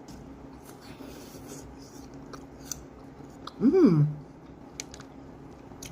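Biting into and chewing a peanut-coated caramel apple: scattered crisp crunches and clicks, with a short hummed "mm" from the eater about four seconds in.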